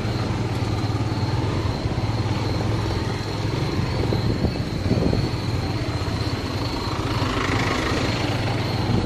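Steady engine hum and road noise from a moving vehicle, with a thin, faint high whine running through it.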